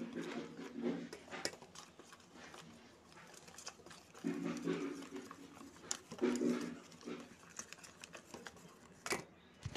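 Wire whisk clicking and scraping against a steel bowl as gram-flour (besan) batter is mixed, with three short low-pitched sounds near the start, about four seconds in and about six seconds in.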